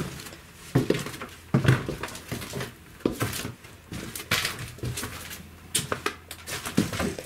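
Footsteps and scuffing as people walk slowly through a narrow corridor: irregular thuds, about one a second, with shuffling and rustling between them.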